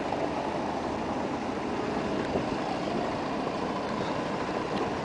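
Steady street ambience at a busy tram stop, with a large vehicle running steadily in the background.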